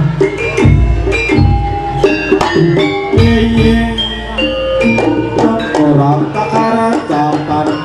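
Javanese jaranan accompaniment music: a gamelan-style ensemble of pitched metal percussion playing a melody over drum strokes, the low drumming heavier in the first half.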